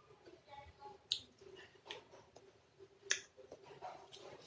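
Mouth sounds of someone eating green mango salad: a few sharp, brief clicks and smacks, the two loudest about a second in and about three seconds in.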